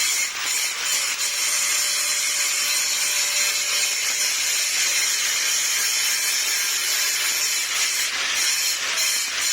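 Electric arc welding on a pipe: the arc burns with a steady, loud, high-pitched hiss without a break.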